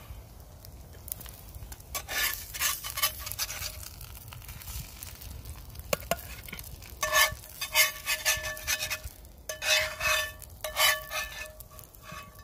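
A metal spatula scrapes fried eggs out of a frying pan onto an enamel plate in several bouts of scraping, with the metal ringing.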